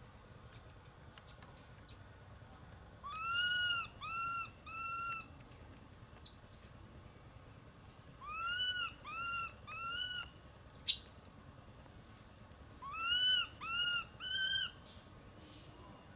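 A bird calling in phrases of three clear whistled notes, each note rising and falling, the phrase given three times, with a few sharp, very high, falling chirps in between.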